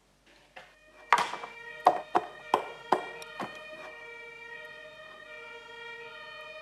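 Background music: a run of short struck notes starting about a second in, then a chord held steady.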